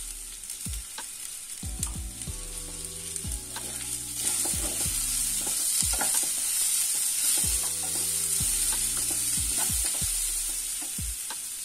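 A wooden spatula stirs vegetables in a hot non-stick kadai over light frying sizzle, mixing the just-added spices in. The spatula scrapes and knocks against the pan every so often, and the sizzle grows louder about four seconds in.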